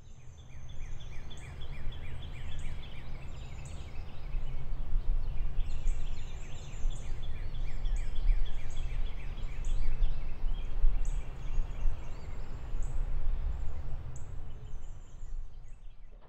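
Outdoor night ambience: a steady low rumble with many short, high chirping calls repeating over it.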